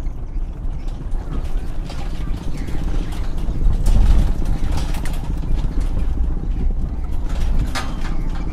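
Small trucks' engines running at low speed, with rattling and clicking over a heavy, steady low rumble.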